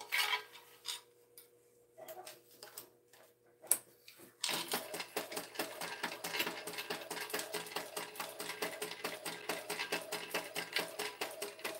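TechSew 2750 Pro walking-foot industrial sewing machine stitching a seam at a steady, rapid pace. The stitching starts about four and a half seconds in, after a few light clicks of fabric being handled.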